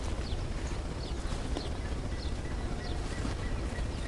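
Outdoor morning ambience: scattered short, high bird chirps over a steady low rumble.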